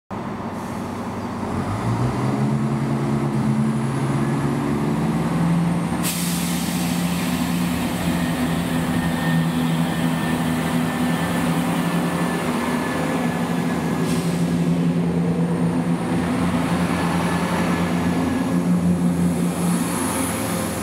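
A train's diesel engine running, its pitch rising over the first couple of seconds and then holding steady, with a faint high whine above it. A sharp, brief noise comes about six seconds in.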